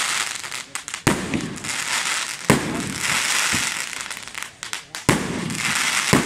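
Aerial fireworks going off: four sharp bangs of bursting shells, a second or more apart, each followed by a dense crackling of crackle stars.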